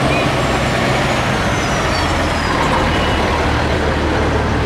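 Fire engine's diesel engine running steadily at close range: a loud, even low drone.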